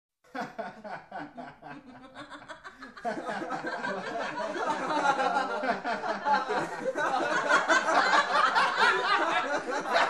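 One person laughing in short repeated bursts, then about three seconds in a small group of men and women joins in. The laughter grows louder and fuller as more voices overlap.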